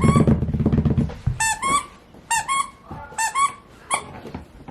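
Small puppy whimpering in short, high-pitched squeaks that come in little groups about once a second. A low rumble underneath fades out after the first second.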